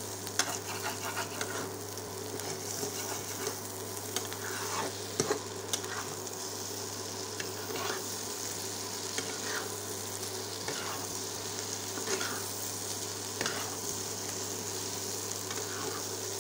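Grated potato and egg frying in oil in a nonstick kadai, sizzling steadily, near the end of frying. A metal spatula stirs and scrapes through it in strokes about every second or so, over a steady low hum.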